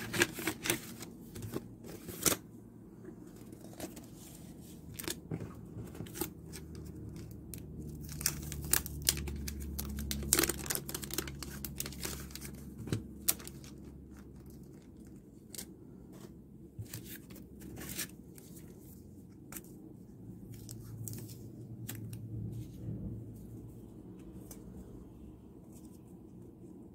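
Paper envelope and plastic photocard sleeves being handled and opened by hand: irregular rustling, crinkling and tearing of paper and plastic, with scattered sharp clicks and taps, busiest in the middle.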